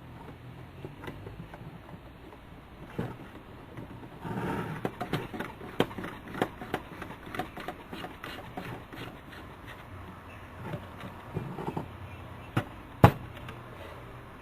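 Hand-work noise of fitting small gauges into an aircraft instrument panel: irregular clicks, taps and light clatter of small parts and tools against the panel. There is a busy run of clicks in the middle and one sharp, louder click near the end.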